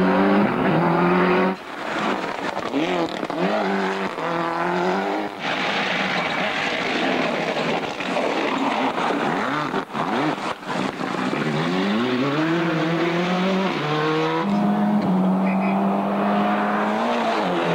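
Ford Escort Cosworth Group A rally cars' turbocharged engines revving hard past the spectators in several short clips. The revs rise steeply and drop again through quick gear changes, and the engine holds a steady high note near the end.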